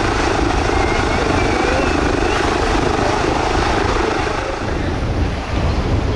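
Aircraft engine and propeller noise from a display flight, a loud steady drone with a faint rising whine above it early on, easing a little near the end.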